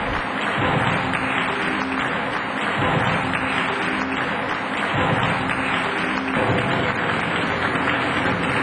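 Audience applauding, steady and sustained, over background music.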